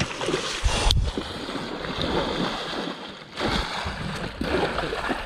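Water splashing and sloshing at the side of a boat as a hooked musky is brought to the landing net, with a low thump about a second in and wind on the microphone.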